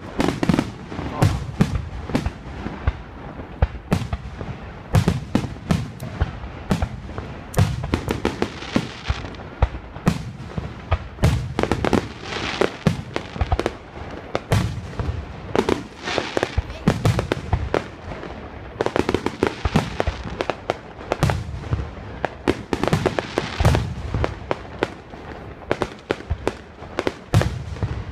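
Fireworks display: aerial shells bursting in quick succession, a dense, unbroken run of bangs and crackles overlapping one another.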